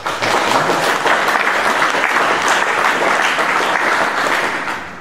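Audience applauding, a steady clapping that starts at once and dies away near the end.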